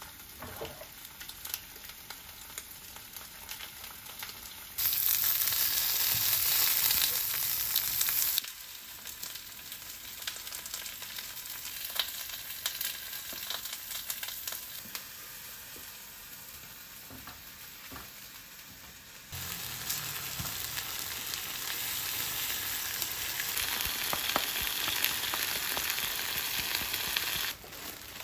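Food sizzling in a frying pan, a steady hiss that jumps between louder and quieter in several abrupt cuts.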